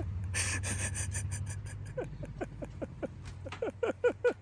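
Fart sound effect: a rapid sputtering series of short, buzzy blasts. Each blast drops in pitch, and they come faster and closer together near the end.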